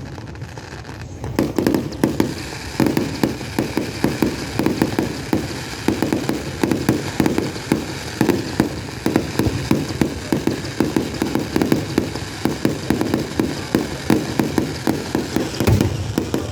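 Aerial fireworks going off in a rapid barrage: many bangs a second with crackle, starting about a second and a half in after a brief lull.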